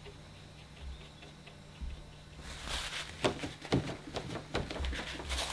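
Quiet room tone with a low steady hum, then, from about halfway in, irregular scratchy rustling and rubbing on paper with a few sharp clicks.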